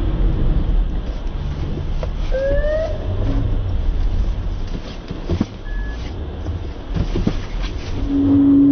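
Car road and engine rumble, with a short rising whine about two and a half seconds in and a few knocks later on.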